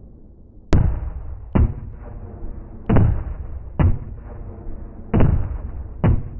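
Cannon shots from a 30 mm Mk44 Bushmaster II chain gun: six deep booms, each with a rumbling tail, coming in three pairs about a second apart.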